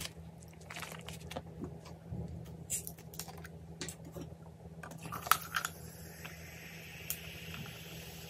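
Close-up mouth sounds of eating instant noodles: chewing and smacking with small clicks. About five seconds in there is a sharp click. Then sparkling water is poured into a glass with a steady fizzing hiss.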